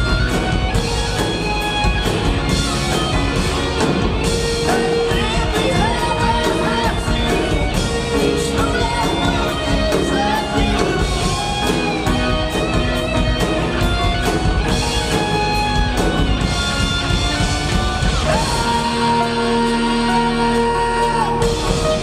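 Live rock band playing: drum kit, electric bass, electric guitars and keyboard under a lead singer's voice. Near the end the drums drop out, leaving a long held note over sustained chords.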